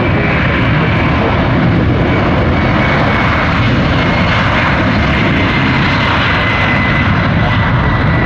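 Boeing 767-300ER jet airliner's engines, loud and steady, with a high whine that slowly falls in pitch.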